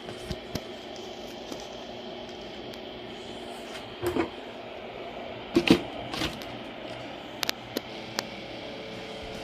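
Steady machine hum with a few sharp knocks and clicks over it, the loudest a pair of knocks about halfway through.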